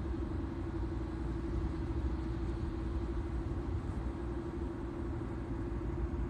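Steady hum over a low rumble from a 2006 Honda Accord EX: the car's abnormal noise, which a tire shop put down to one of its tires, though balancing all four and an alignment have not cured it.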